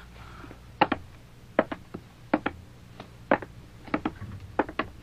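Footsteps of boots on a wooden floor at a walking pace, a sharp knock about every second, several of them doubled.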